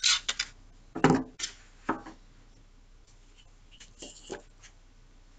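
Drafting tools such as a ruler being handled and set down on a wooden drawing board: a few sharp clacks and knocks, the loudest about a second in, with another short cluster about four seconds in.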